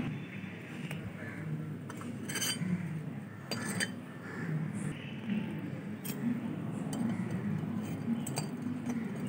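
Light metallic clinks as a small steel plate is set over a miniature clay pot as a lid and moved about with metal tongs, a few separate clinks spread over several seconds.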